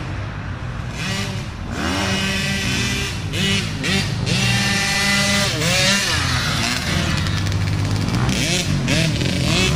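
Small dirt bike engine revving up and down over and over as it approaches, its pitch climbing and dropping with the throttle and gear changes and growing louder, over a steady low drone.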